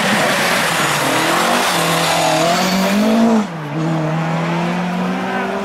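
Historic rally car's engine accelerating hard, its pitch climbing, then dropping abruptly at a gear change about three and a half seconds in before climbing again.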